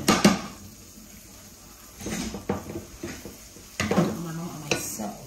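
Kitchen clatter: a few sharp clinks and knocks of kitchenware, one cluster right at the start and another just before the end.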